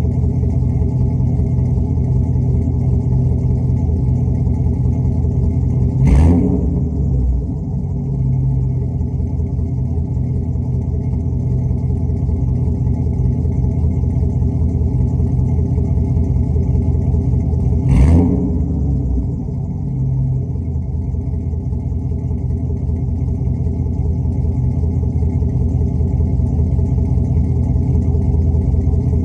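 6.0-liter LS V8 engine idling steadily, revved briefly twice: once about six seconds in and again about eighteen seconds in. The idle sags for a moment after each rev before settling back.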